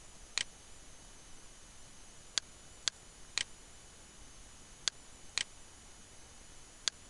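Computer mouse button clicking: seven sharp single clicks in groups of two or three, about half a second apart, as folders are opened in a file dialog. A faint steady hiss with a thin high whine lies under them.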